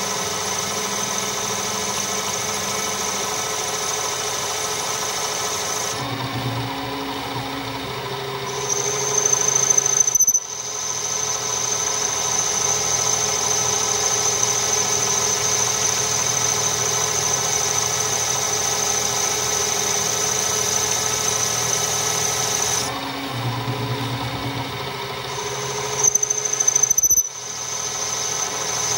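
Metal lathe turning a small metal brake drum while an insert cutting tool machines its inner face: a steady machine hum with a high, steady cutting squeal. The sound shifts about six seconds in, grows louder, and breaks off sharply about ten seconds in; the same happens again near the end.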